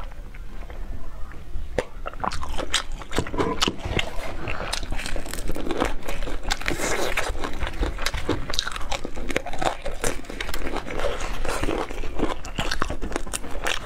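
Close-miked chewing of crispy breaded fried chicken: irregular crunching bites mixed with wet mouth sounds. The crunching starts about two seconds in, after a quieter moment, and then runs on densely.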